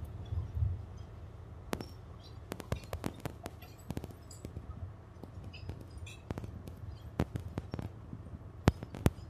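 Wheels of a departing passenger train clicking and clacking irregularly over rail joints and points as it pulls away, over a low steady rumble.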